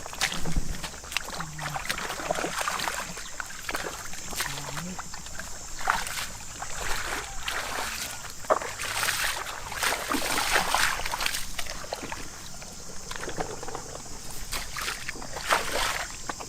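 Shallow water splashing and sloshing in short, irregular bursts, as when someone wades and gropes by hand in a flooded field.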